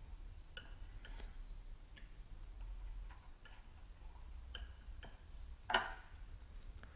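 Faint, irregular light ticks and taps of a paintbrush against a wooden palette and a palette cup while thinned raw umber paint is mixed with more medium, about eight in all, the loudest knock near the end.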